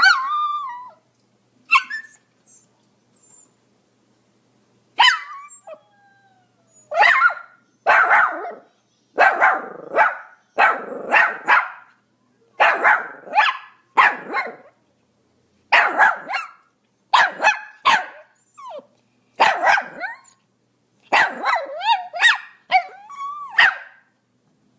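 Pomeranian barking: two sharp barks at the start, a pause of a few seconds, then a long run of repeated high-pitched barks about one a second, some coming in quick pairs.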